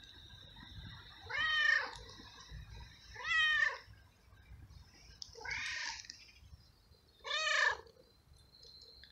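A stray tomcat meowing four times, about once every two seconds, each meow rising and then falling in pitch. The owner takes these loud calls for a tom in heat calling for a female and asking for food.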